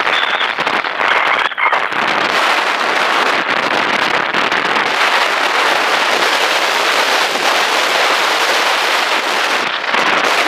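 Car driving on a dirt and gravel road, picked up by a camera on the outside of the body: a steady, dense rush of wind and tyre noise on the loose surface, with a fine crackle of grit.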